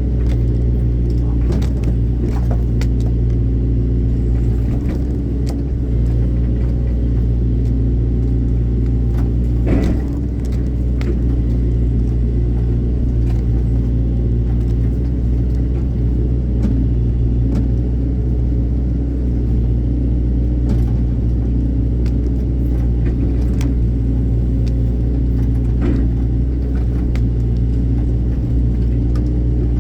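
Excavator's diesel engine running steadily with a deep drone, with scattered short knocks and clanks, the loudest about ten seconds in.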